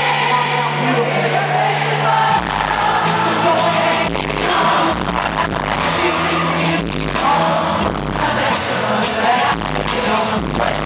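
Live pop song over an arena PA, a woman singing into a microphone over the band, recorded from the crowd. About two seconds in, a heavy, overpowering bass and drum beat comes in.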